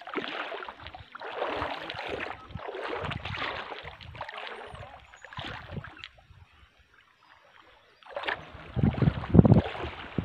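Water sloshing and splashing in swells about every second and a half as someone wades through shallow reef-flat water at low tide. It stops for about two seconds after six seconds in, then comes back louder.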